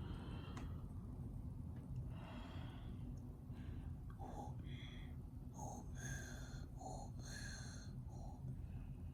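Steady low hum of window air conditioners running. Several short, high-pitched sounds come in the middle.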